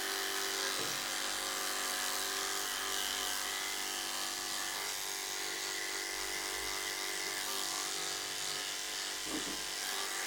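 Corded electric dog-grooming clipper running with a steady hum while its blade shaves a schnauzer's coat.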